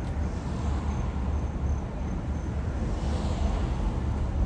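Car road noise while driving: a steady low rumble, with a hiss that swells about three seconds in.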